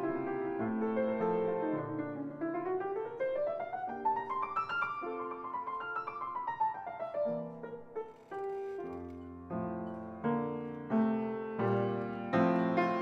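Solo grand piano playing: in the middle a fast run of notes climbs up the keyboard and comes back down, followed by separate struck chords and deep bass notes, growing louder and more accented near the end.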